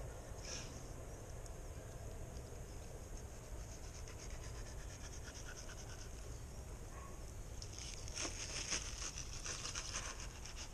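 Fillet knife scraping between bluefish skin and flesh against a cutting board during skinning: faint scratching that grows denser and louder near the end, over a steady low rumble.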